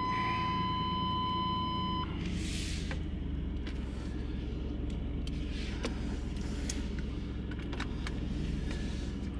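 Chevy G20 van's engine idling steadily, heard from inside the cab. For the first two seconds a steady dashboard warning tone sounds over it, then stops, and a few light clicks follow.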